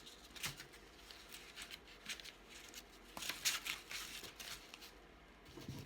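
Paper rustling and crinkling as sheets are shuffled and handled, with a few light taps; the loudest rustles come a little past halfway.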